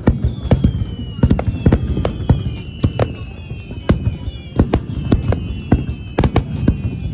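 Fireworks display: a rapid, irregular string of sharp bangs and crackles, with several long whistles sliding slowly down in pitch over them.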